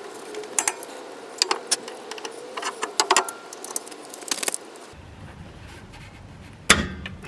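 Small metal parts and tools clinking and rattling as they are handled: a quick series of light metallic clinks, then one louder knock near the end.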